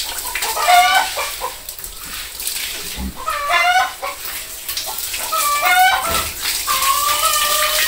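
Chickens clucking in a farmyard: about four separate drawn-out, wavering calls.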